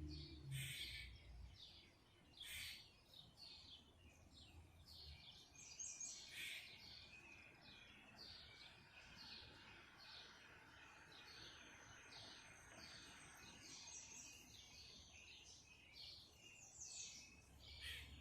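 Faint songbirds chirping: a steady run of short, high calls, about two a second.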